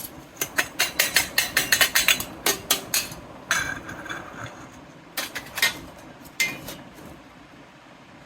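Small hard toy kitchen pieces tapping and clinking together: a quick run of about twenty sharp clicks over the first three seconds, then a short scrape with a slight ring, and a few scattered taps after.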